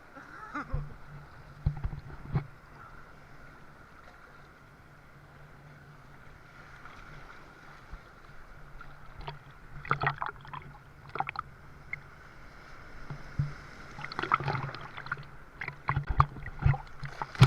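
Water splashing and sloshing around a person wading and swimming, coming in short bursts about two seconds in, around ten seconds in and again near the end.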